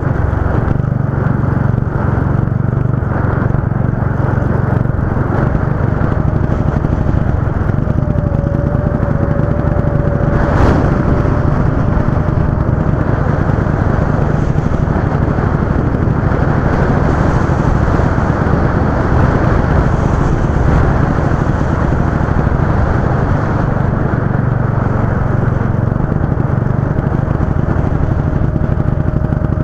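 Go-kart engine running steadily under way, its note rising and falling a little. A single sharp knock comes about ten seconds in.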